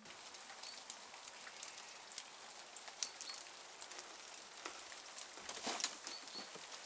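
Rain falling on hard outdoor surfaces: an even hiss with many scattered sharp drop ticks, a cluster of louder ones about five and a half seconds in.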